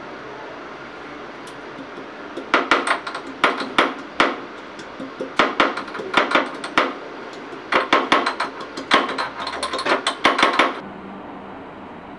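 Metal dishes and utensils knocking and clinking against a stainless-steel kitchen sink as they are washed. The clatter comes in three quick bouts, starting about two and a half seconds in and stopping near the end, over a steady background hum.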